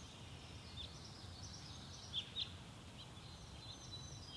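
Faint outdoor ambience: a low steady rumble with a few short, high bird chirps scattered through it, a pair of them close together about two seconds in.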